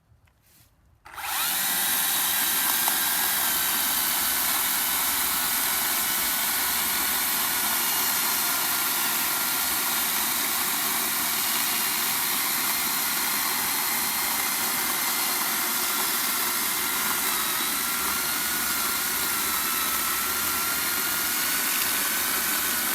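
Makita XCU08 36-volt battery top-handle chainsaw with a 14-inch bar and 1/4-inch pitch chain, starting about a second in and cutting steadily through a thick hickory log. Its motor whine sags a little in pitch under load past the middle, then picks back up.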